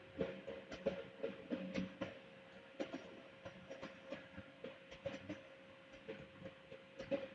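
Faint, irregular knocks and clatter over a steady low hum.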